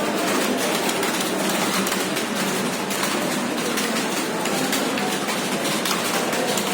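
Many computer keyboards being typed on at once: a steady, dense clatter of overlapping keystrokes.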